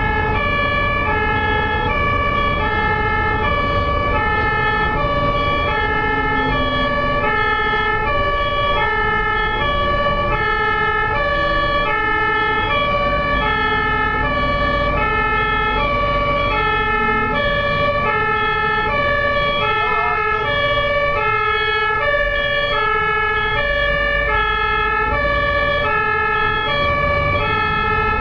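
Ambulance two-tone siren sounding continuously, high and low notes alternating evenly, each held a little under a second, over the low rumble of traffic.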